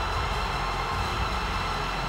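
Stadium crowd at a football match, a steady roar of many voices.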